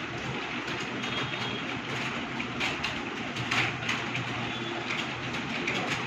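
Many computer keyboards being typed on at once: a dense, irregular clatter of overlapping keystrokes from a room of students working through a timed typing test, over a low steady hum.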